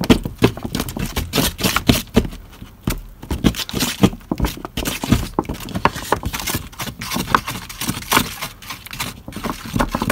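Tile adhesive being stirred with black acrylic paint in a clear container, the mixing tool scraping and clicking quickly and irregularly against the container's sides and bottom.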